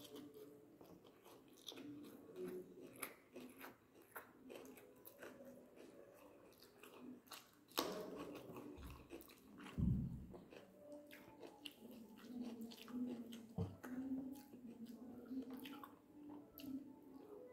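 Close-up eating sounds: a person chewing and smacking mouthfuls of string hoppers (idiyappam) with dried-fish curry, with many small wet clicks. There are two louder dull thumps, about eight and ten seconds in.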